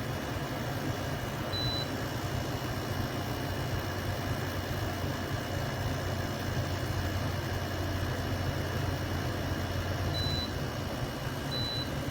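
Amazon Basics 10,000 BTU portable air conditioner running with a steady low hum. Three short high beeps sound over it, one about a second and a half in and two close together near the end.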